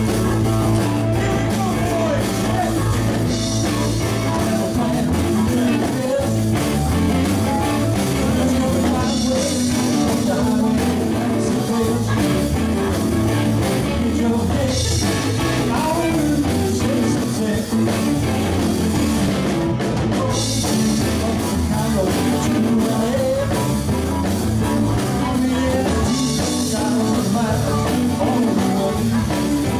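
Live rock-and-roll band playing a song: electric guitars and a drum kit, with a singer, and cymbal crashes every five or six seconds.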